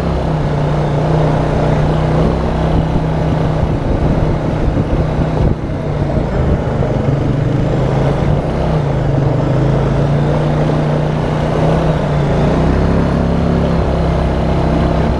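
Honda Rancher ATV's single-cylinder four-stroke engine running while it rides a dirt trail, the engine note wavering slightly with the throttle and dipping briefly about five and a half seconds in. A steady rush of wind and trail noise runs under it.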